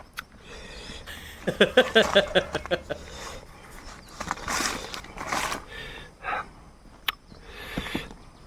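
A man eating hot king chilli: a short strained, groan-like vocal sound about two seconds in, then several sharp breaths or sniffs.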